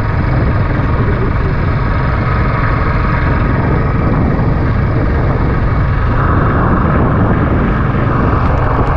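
Wind rushing over the microphone of a moving motorcycle, with the Royal Enfield Classic 350's single-cylinder engine running steadily underneath.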